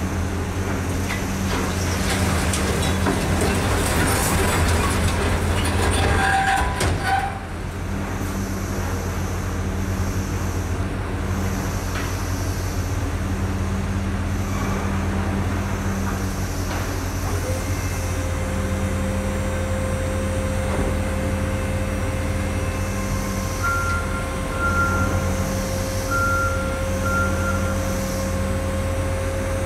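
Truck engine running steadily while the raised bed of a dump trailer tips out its load. A loud rush of the load sliding out stops suddenly about seven seconds in. Later a steady whine sets in and rises slowly, and short high beeps sound several times near the end.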